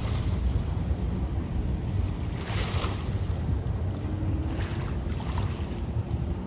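Wind buffeting the microphone on a moving boat, over the steady rush of water and a low rumble. A brief louder rush of water or spray about two and a half seconds in, and a faint steady hum from about four seconds in.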